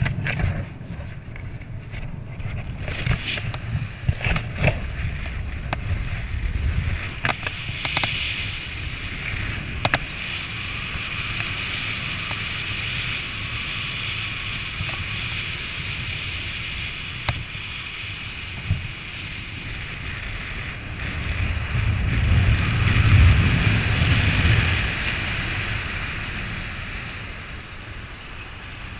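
Wind rushing and buffeting over a skydiver's head-mounted camera microphone under an open parachute canopy, with a run of sharp flaps and snaps of nylon canopy fabric in the first ten seconds. The rush swells louder about twenty-two seconds in, then eases off.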